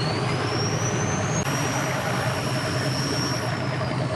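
Engines running steadily with a low hum, over which a high whine climbs, jumps up about a second and a half in, holds, then slowly falls.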